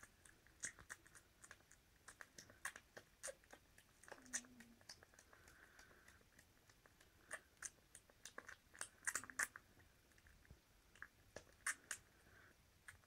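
Faint scattered clicks and smacks of two Border Terrier x Jack Russell puppies mouthing and nibbling at each other as they play-wrestle.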